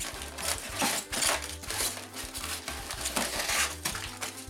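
Bubble wrap and packing paper rustling and crinkling in irregular bursts as hands pull a plastic-wrapped bonsai pot out of a cardboard box.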